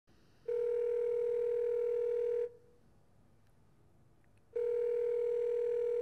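Ringback tone of a video-chat call while it connects: one steady tone that sounds for about two seconds, stops for two seconds, then sounds again for two.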